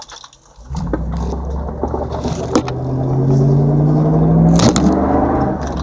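2004 Dodge Durango's 5.7 Hemi V8 comes in under a second in and revs up slowly, its pitch rising for a few seconds and then holding, with a few sharp clicks or knocks, the loudest about four and a half seconds in. The owner reports a strange buffering noise on light throttle and a rattle when the gas is stomped and released.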